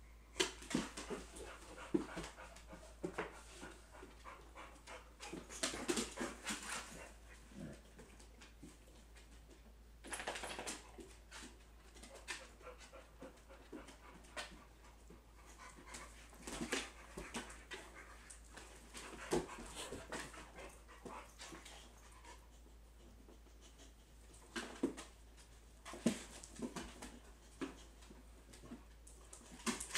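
A boxer and a pit bull puppy play-fighting on a hardwood floor: dog vocal sounds and panting mixed with scuffling and paws and claws knocking on the wood, in irregular bursts.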